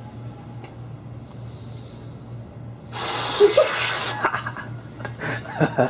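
Aerosol can of whipped cream spraying: a sudden loud hiss, starting about three seconds in and lasting about a second, over a faint low hum. Short sounds of a man's voice and rustling follow near the end.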